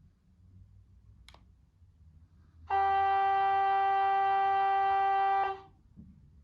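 The model BR 101 electric locomotive's horn, a recorded sound played by its Zimo sound decoder through the model's small speaker: one steady note held for about three seconds, then cut off. A short click comes before it.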